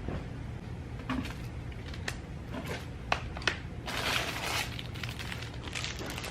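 Clothes being handled: fabric rustling, with a louder rustle about four seconds in, and scattered small clicks and knocks over a low steady hum.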